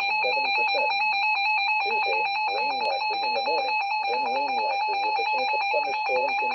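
Emergency Alert System attention tone sounding for a tornado warning: a loud, steady electronic tone held without a break, with a fainter wavering sound beneath it.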